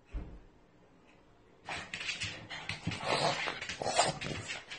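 A pug making excited noises as it jumps about at someone's feet, starting after about a second and a half of near quiet and coming in short noisy spells.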